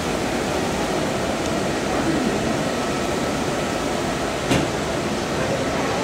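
Maple sap evaporator pans at a steady boil, giving an even rushing hiss of boiling sap and steam. A single brief knock sounds about four and a half seconds in.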